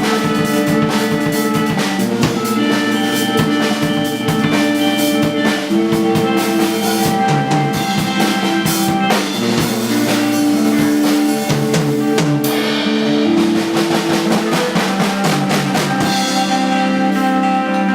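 Live band music: a drum kit keeping a steady beat with snare and rimshot hits under sustained pitched instrument notes.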